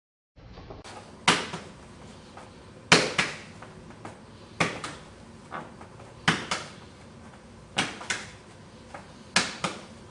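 Sharp slaps of hands and gloves meeting arms as a back fist and cross are parried aside, in quick pairs about every second and a half, about six times.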